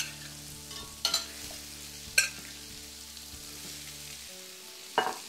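Trout fillets and asparagus frying in butter and bacon fat in a stainless steel pan, with a steady sizzle. Four sharp clinks of a utensil against the pan sound as the fillets are laid back in.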